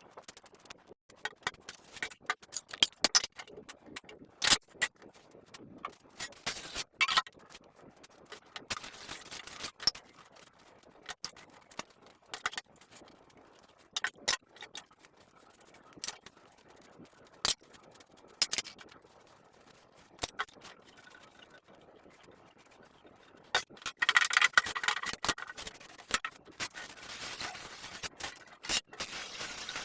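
Dishes and kitchen utensils clinking, knocking and scraping in irregular sharp clicks, with a denser stretch of scraping noise near the end.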